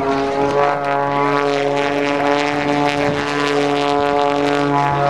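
Extra 300S aerobatic plane's 300-horsepower six-cylinder Lycoming engine and propeller making a steady drone as it flies overhead. The pitch sags slightly near the end.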